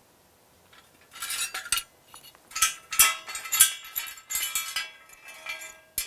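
Steel hand tools and the square steel base plate of a sand-replacement density kit clinking and rattling as they are handled and set down on metal trays. The sharp clinks, each with a brief ring, start about a second in and come irregularly.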